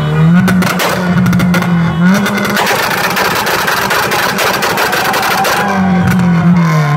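Honda Civic hatchback's engine revved hard through its exhaust, held at high revs as a loud, rapidly pulsing exhaust note for about three seconds in the middle before dropping back. Music with a stepping bass line plays under it at the start and end.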